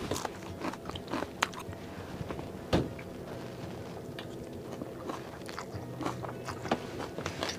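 Someone chewing and biting food, with scattered small clicks and a sharper knock about a third of the way in, over a faint steady hum.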